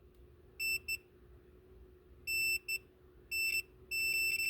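Multimeter continuity beeper sounding in short, irregular beeps, then a longer beep near the end, as a mercury switch capsule is rotated. The mercury makes and breaks contact, and the connection is patchy.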